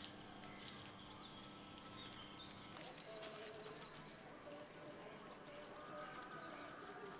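Faint outdoor background noise with scattered short bird chirps, a little busier from about three seconds in.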